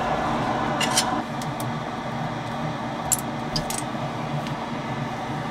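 A few small, sharp metallic clicks and scrapes as a tool pries an 8-pin op amp chip out of its socket on a synthesizer circuit board, over a steady background hiss.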